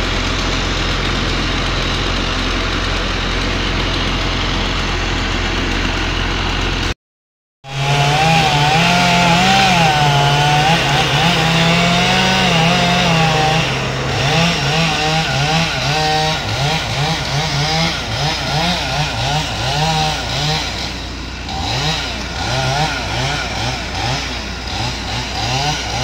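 An engine runs with a steady drone. After a short break, a Stihl chainsaw cuts into the base of a standing pine trunk, its pitch wavering up and down under load and turning choppier and more pulsing about halfway through, with the steady engine drone carrying on underneath.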